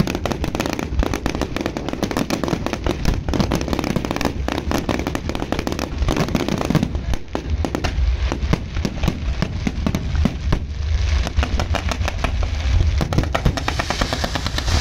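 Fireworks going off at close range: a dense, continuous barrage of rapid bangs and crackles over deep booms, with a hissing crackle building over the last few seconds.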